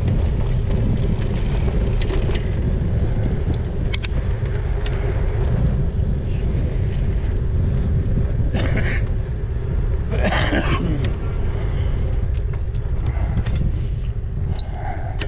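Steady low rumble of wind and road noise on the microphone of a moving e-bike, with scattered clicks throughout and two brief louder sounds a little past the middle.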